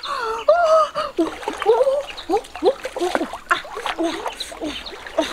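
River water splashing and sloshing as a person wades waist-deep and pushes a large metal wok through it, with many short, bending vocal calls over the splashing.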